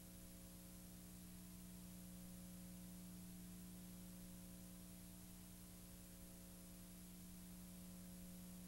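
Near silence: only a steady low hum with faint hiss, unchanging throughout.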